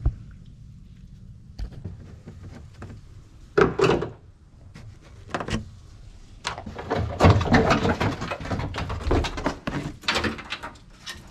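Plastic trunk trim panel on a Nissan Gloria being pulled free and handled: scattered knocks and clicks, a thunk about three and a half seconds in, then a busy run of rattling clicks and knocks over the last few seconds.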